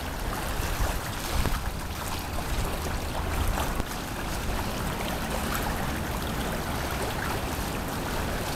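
River water flowing, a steady wash of noise with a low rumble underneath.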